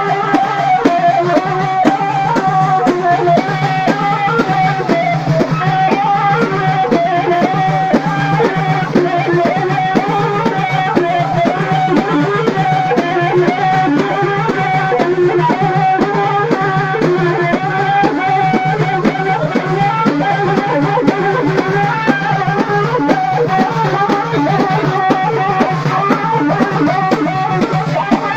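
Allaoui folk music: a wind instrument plays a wavering melody over dense, steady drumming, continuous and loud.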